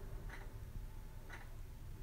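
Vornado 573 box fan running with a low steady hum, which its owner says has bearing issues and needs oil. A soft tick repeats about once a second over the hum.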